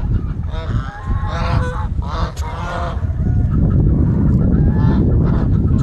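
Domestic geese honking, a run of short nasal calls in the first half. A low rumbling noise then grows and dominates near the end.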